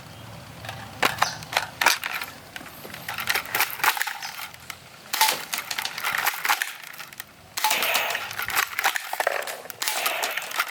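Plastic toy sniper rifle being handled: a run of sharp clicks and knocks from its plastic parts, with a stretch of rustling from about eight seconds in.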